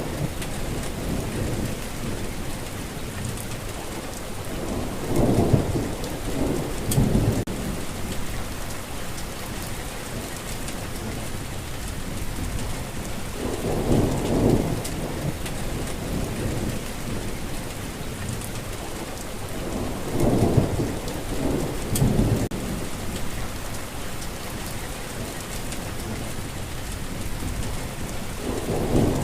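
Steady, heavy rainfall with several low rolls of thunder that swell and fade every few seconds.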